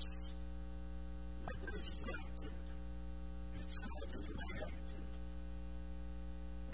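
Steady electrical mains hum with a stack of even overtones, and a faint voice speaking briefly twice.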